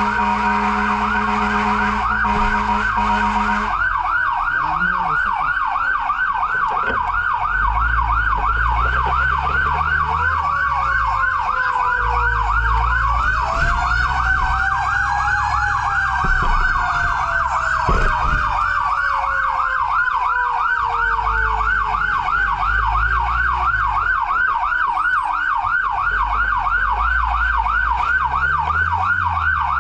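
Emergency vehicle siren sounding a steady tone for the first few seconds, then switching to a fast yelp that sweeps up and down several times a second. A slower wailing siren rises and falls underneath, over a low engine rumble.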